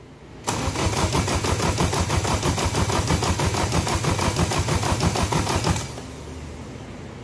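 Starter motor cranking a Honda K24A2 four-cylinder engine for about five seconds, with a fast even chugging rhythm from the compression strokes. It stops suddenly without the engine firing: the engine is being turned over for a compression test.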